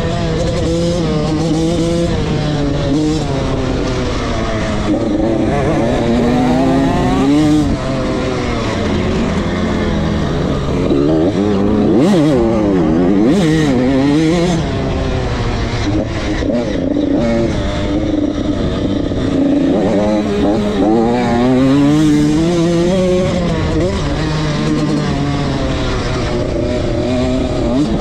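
Motocross dirt bike engine, heard from on board, revving up and dropping back over and over as the rider accelerates, shifts and rolls off along the track, with a fast warbling stretch of revs about halfway through.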